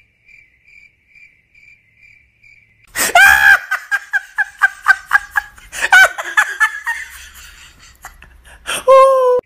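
Faint cricket chirping, evenly pulsed about twice a second, then a loud burst of high-pitched laughter in quick repeated bursts that fades away, with a short held vocal note near the end.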